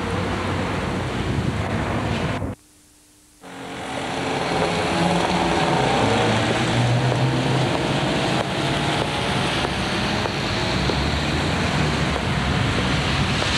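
Cars driving past on a wet road: a steady hiss of tyres on wet asphalt with engine hum that swells as a car goes by around six seconds in. The sound cuts out briefly about two and a half seconds in.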